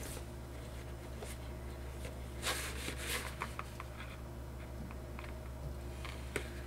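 Hands handling unboxing items: a couple of brief rubbing swishes about two and a half and three seconds in, and light clicks and taps, one sharper near the end.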